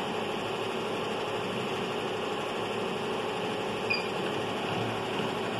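Steady machine hum with a constant mid-pitched tone, and a brief high chirp just before four seconds in.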